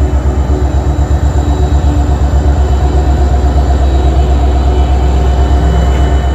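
Alaska Railroad EMD SD70MAC diesel-electric locomotive running while standing at the platform: a loud, steady low rumble with a quick throb from its 16-cylinder two-stroke diesel.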